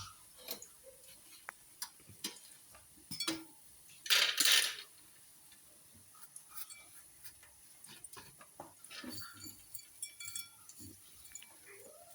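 Kitchen clatter: dishes and utensils clinking and knocking at irregular intervals, with a louder noisy burst lasting about a second, roughly four seconds in.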